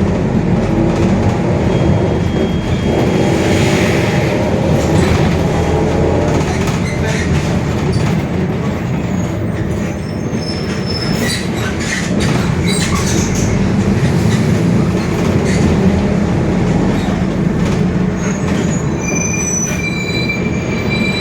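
Mercedes-Benz OF-1721 city bus under way, heard from inside: its four-cylinder diesel and drivetrain running steadily with a continuous low rumble and scattered clicks and rattles. The rear differential growls, the noise of a worn differential. A short high beep sounds near the end.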